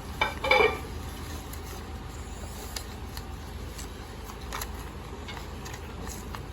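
A sheet of paper being handled and creased while a paper boat is folded: a short, loud crackle about half a second in, then faint scattered crinkles and taps.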